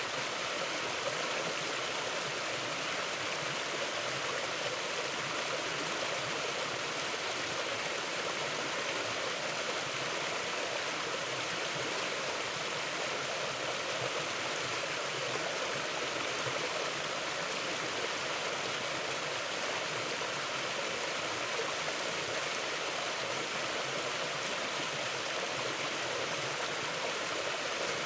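Mountain river flowing: a steady, even rush of water with no pauses or distinct splashes.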